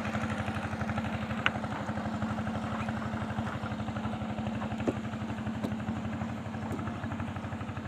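Small engine running steadily with a fast, even pulse, cutting off abruptly near the end.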